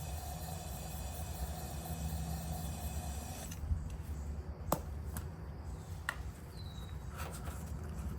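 Electrostatic powder coating gun spraying with a steady hiss and a faint high whine, cutting off about three and a half seconds in. A few light clicks follow, over a low rumble.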